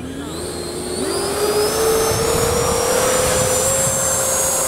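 Electric ducted-fan RC jet running at high power, a rising whine that climbs in pitch and grows louder over the first two seconds, over the rush of the fan's airflow.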